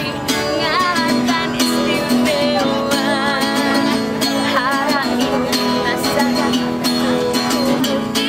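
Music: guitar accompaniment under a melody line that wavers in pitch.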